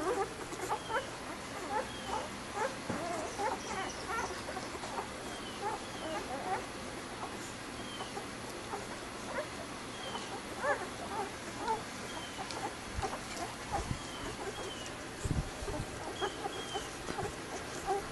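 Newborn puppies squeaking and whimpering while they nurse, many short, high, irregular squeaks overlapping.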